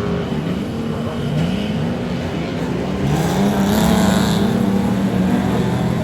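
Speedway race car engines running on the track, their pitch rising over and over as they accelerate, then holding steadier, with a louder rush about halfway through.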